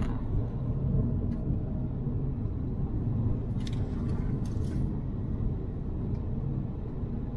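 Steady low rumble of a car driving along a paved road, heard from inside the cabin: engine and road noise.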